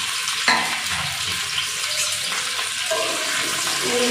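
Chopped okra sizzling in a little hot oil in an aluminium pan, a steady hiss while it is shallow-fried to half-cook. A single knock comes about half a second in, and a spatula starts stirring and scraping the pieces near the end.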